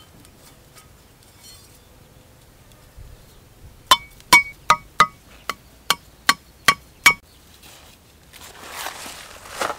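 A machete striking the top of a wooden stake about nine times, roughly three blows a second, each hit with a short metallic ring: the stake being driven into the ground. Near the end, a rising rustle of grass.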